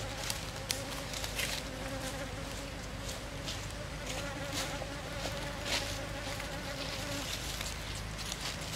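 A bee buzzing steadily in flight, the buzz stopping about seven seconds in. Scattered short crackles come through as a macaque chews a piece of bees' nest.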